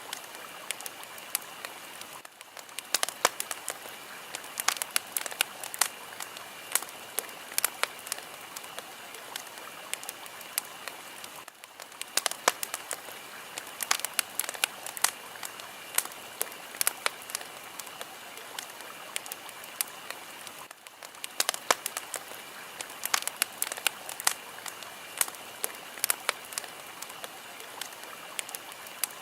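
A fire crackling: a steady hiss with frequent sharp pops and snaps, easing briefly about every nine seconds.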